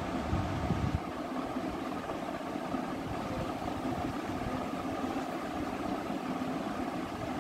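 Steady mechanical hum of a running motor, with a few faint steady tones in it.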